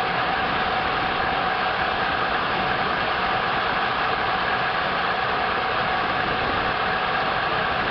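Frick steam engine powering a sawmill, running steadily: a constant mechanical noise with a steady whine through it.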